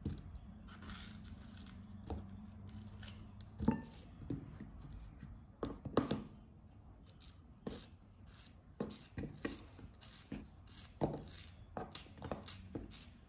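A small kitchen knife cutting ripe peaches into chunks in the hand, irregular soft cuts and clicks as the blade goes through the flesh and pieces drop into a plastic tub.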